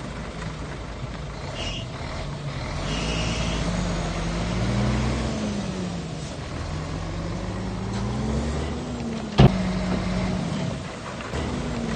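Shantui bulldozer's diesel engine working under changing load, its pitch rising and falling, with a brief high squeak twice early on and a single sharp metallic bang about nine and a half seconds in.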